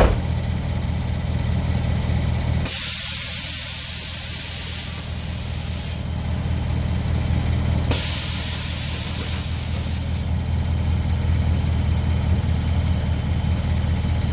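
Two bursts of compressed-air hiss, each two to three seconds long, from the truck's Accuair air-suspension system moving air through its valves, over the steady idle of the truck's engine.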